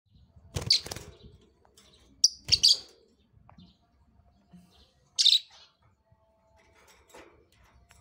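A soft blue (pastel blue) mutation lovebird giving shrill chirps in three short bursts: about half a second in, around two and a half seconds, and just after five seconds.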